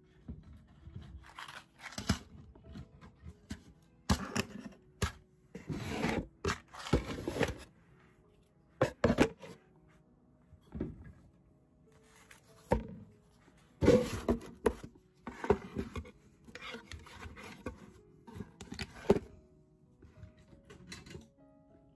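Objects being handled and moved on a tabletop, including a cardboard box: irregular rustling, rubbing and knocks, over faint background music.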